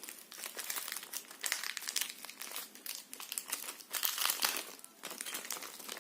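Packaging crinkling and rustling by hand as a microphone's accessories are unpacked: a steady run of small irregular crackles, a little louder about four seconds in.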